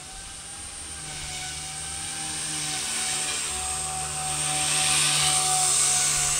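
Blade 130 X micro electric RC helicopter flying: a steady whine from its motors and rotors over a high hiss. It grows steadily louder as the helicopter comes in low and close.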